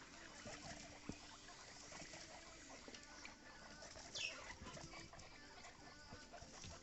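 Guinea pigs moving about, with faint scattered rustling and small clicks, and one short high squeak that falls in pitch about four seconds in.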